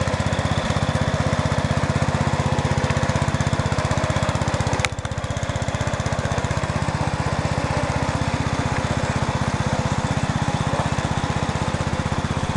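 Sears Suburban 12 garden tractor's Briggs & Stratton engine running steadily under load as it drags three spruce logs. A single sharp click about five seconds in.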